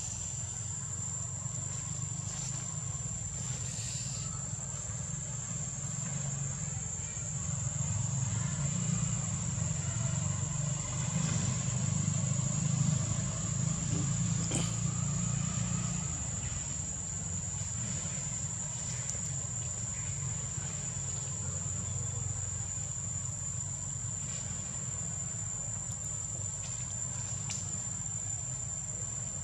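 Insects droning: one steady, high-pitched whine, over a low rumble that grows louder for several seconds in the middle and then eases off.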